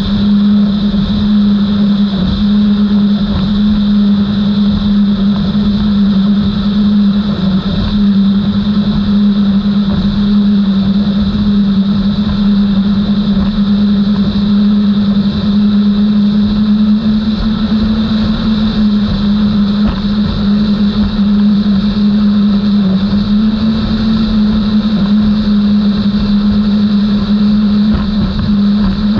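Outboard engines of a Skater 32 catamaran race boat running at a steady high-speed cruise: a loud, constant drone holding one pitch, over a rush of wind and water.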